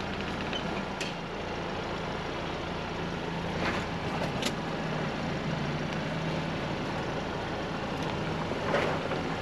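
Ford Bronco's engine running steadily as the truck drives a dirt trail, with tyre and wind noise over a low hum and a few short knocks or rattles.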